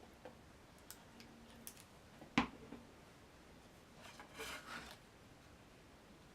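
Paper-craft pieces being handled on a work table: a few light clicks, a sharp tap about two and a half seconds in, and a brief paper rustle about four seconds in.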